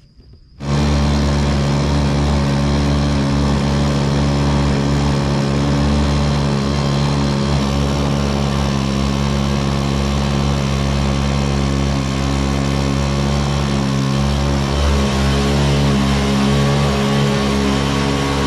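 Jet-drive motor on a fishing kayak running steadily at cruising speed: a loud, even mechanical hum that cuts in abruptly about half a second in.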